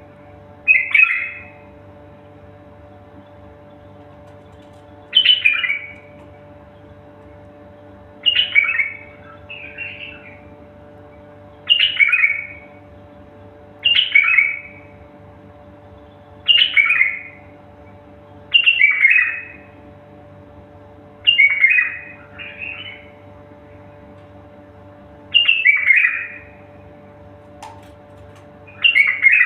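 A songbird singing short, loud, falling phrases, one every two to three seconds, about ten in all.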